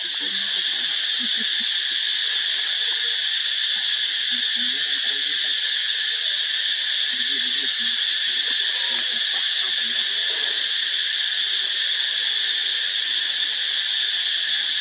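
A chorus of insects droning, an unbroken high buzz that holds the same pitch and level.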